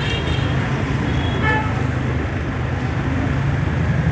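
Steady street traffic noise with a constant low engine rumble, and a brief higher-pitched sound about a second and a half in.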